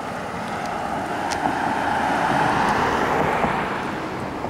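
A car driving past close by: the rush of its tyres and engine swells as it approaches, peaks about halfway through, then fades as it goes away.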